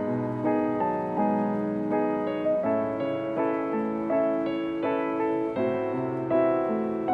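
Background piano music: a gentle melody of notes struck about twice a second, each fading away.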